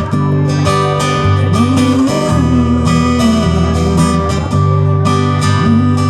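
Instrumental music: strummed acoustic guitar over a steady bass, with a sliding melody line on top.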